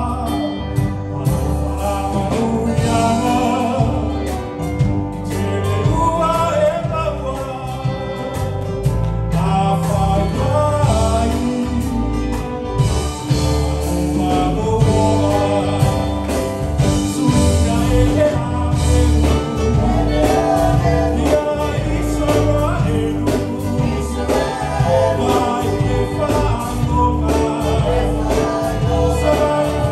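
Live church band playing a gospel song: a man singing into a microphone over amplified electric guitars, bass guitar and keyboard.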